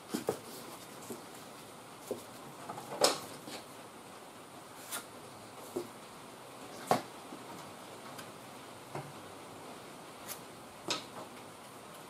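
Scattered short scrapes and taps of a putty knife picking up mixed JB Weld epoxy from a mixing board, a few seconds apart, the sharpest about three, seven and eleven seconds in.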